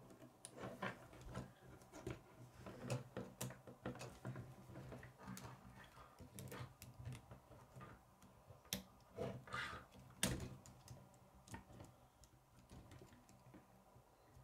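Plastic K'nex rods and connectors clicking and rattling as an assembled model is handled and turned over on a wooden table, with irregular light taps and knocks; the loudest knock comes about ten seconds in.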